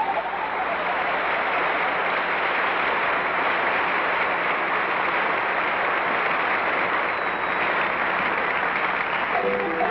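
Studio audience applauding steadily after a musical number; music comes back in just before the end.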